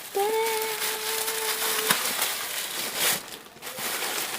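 Plastic parcel packaging rustling and crinkling as it is handled and pulled open, with small clicks. A steady held tone sounds for nearly two seconds near the start.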